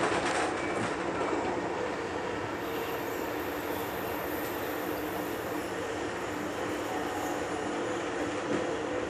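Amtrak California Zephyr passenger train running at speed, heard from aboard: a steady rumble and hiss of wheels on the rails.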